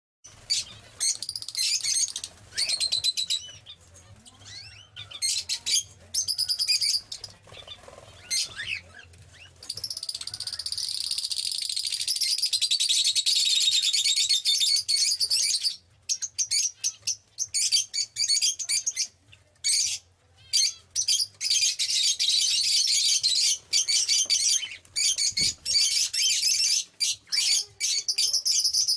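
Birds chirping in short, broken bursts; from about ten seconds in, a dense, high chirping chorus takes over, cutting in and out in the later part.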